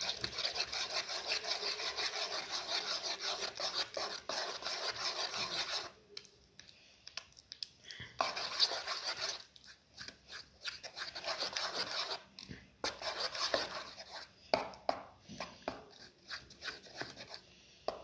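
A spoon stirring and scraping thick pancake batter in a bowl, in quick rhythmic strokes. The stirring stops briefly about six seconds in, then carries on in shorter bouts.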